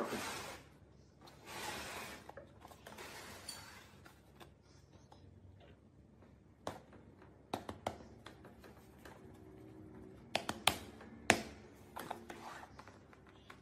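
A wooden drawer scraping as it is pulled open in a few short pushes, then a handful of sharp wooden clicks and knocks as it is handled.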